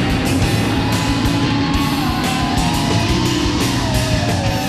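Background rock music with a steady drum beat and electric guitar.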